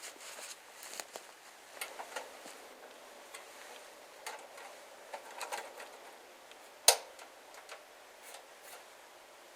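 Scattered light clicks, taps and rustles of objects being handled, with one sharp, loud click or knock about seven seconds in.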